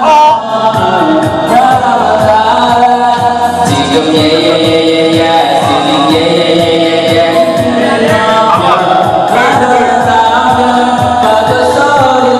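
Karaoke singing: a man's voice through a handheld microphone over a loud backing track with a steady beat.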